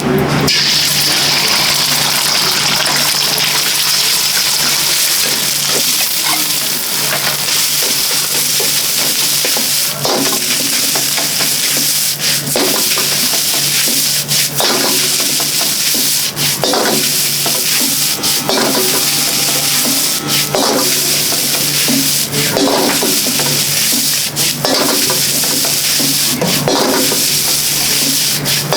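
Fried rice being stir-fried in a wok, with a steady sizzle. From about ten seconds in, a metal ladle knocks against the wok every second or two, over a steady low hum.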